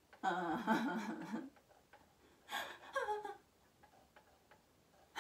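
A woman's voice without words: one long wavering moan lasting about a second, then a shorter cry falling in pitch a second or so later.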